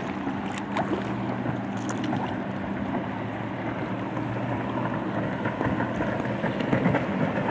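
A jet ski's engine drones steadily across the open water, with water lapping and splashing against the hull of an inflatable kayak.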